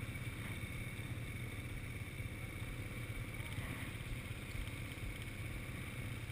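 Quad bike engines idling steadily.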